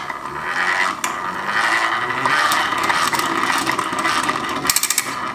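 Steel chisel ground against the stone of a Genesee hand-crank bench grinder as the wheel is cranked: a continuous rough, fluttering scrape, with a few sharp clicks near the end. The wheel is off-centre and not running true.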